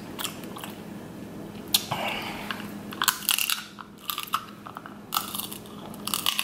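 Close-miked eating sounds: king crab leg meat being pulled from the shell and chewed, with irregular wet smacks and clicks of the mouth.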